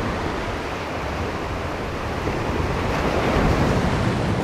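Ocean surf washing and breaking over boulders at the shoreline, with wind buffeting the microphone; the wash swells louder about three seconds in.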